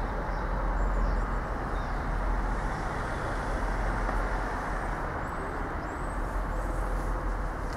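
Train running through the station, a steady rumbling noise with no change in level.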